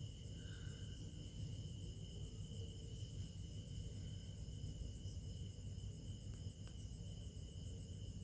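Quiet steady background noise: a low hum with a thin, high-pitched steady whine over it, and no distinct event.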